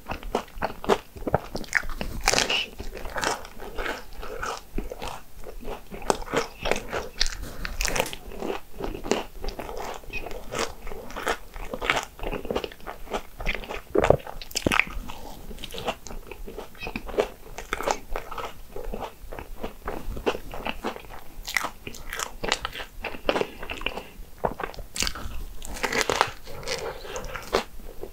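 Biting and chewing a crispy Hong Kong egg waffle: a steady run of irregular crunches, several a second.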